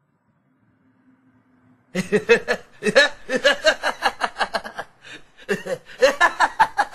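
Men laughing heartily in quick repeated bursts, starting about two seconds in after a near-silent pause.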